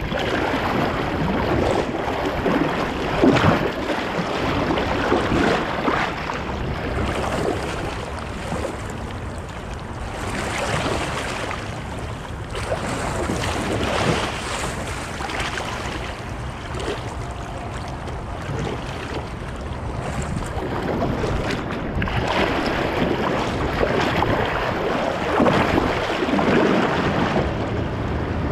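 Rushing whitewater churning around a kayak running a class II rapid, with the splash of paddle strokes, swelling louder and softer as the boat passes through waves. Wind buffets the microphone.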